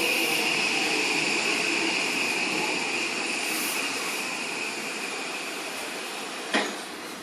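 Odakyu 5000 series electric train running past, its steady rolling noise slowly fading as it moves away, with one sharp click near the end.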